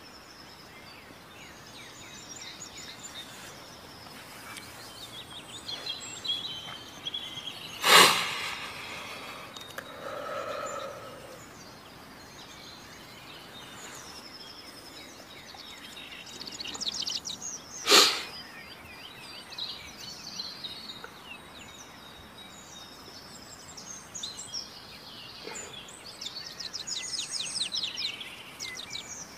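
Outdoor woodland ambience with birds chirping and twittering on and off. Two short, loud noises stand out, one about eight seconds in and another about ten seconds later.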